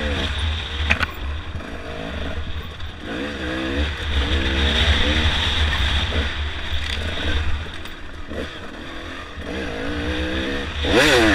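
Dirt bike engine heard from the rider's helmet, revving up and down over and over while picking along a rough trail, over a steady rumble of wind on the microphone. It drops off for a moment about eight seconds in, then climbs hard just before the end.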